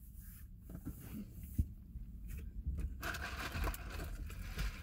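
Takeout food packaging being handled: quiet scraping and rustling, with a sharp click about a second and a half in and a denser rustle from about three seconds in.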